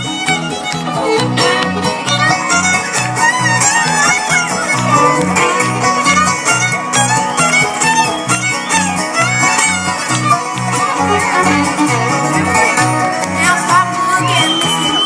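Bluegrass band playing an instrumental break between sung verses: a fiddle carries a sliding melody over banjo and guitar, with a steady low beat about twice a second.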